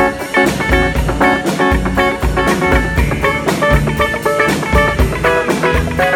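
Band music with no singing: guitar playing a run of short, quick notes over a steady drum kit beat and bass.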